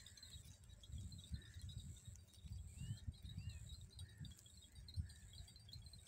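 Faint open-field ambience: small birds chirping now and then and a steady high insect trill, over an irregular low rumble.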